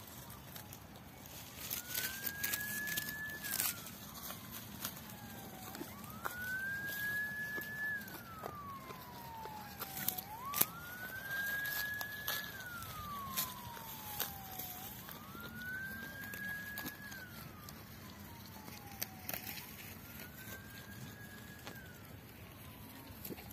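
A siren wailing in slow cycles. Each cycle rises quickly to a high pitch, holds briefly, then slides slowly down, repeating about every four seconds, and the last cycles are fainter. Scattered sharp clicks and knocks sound over it.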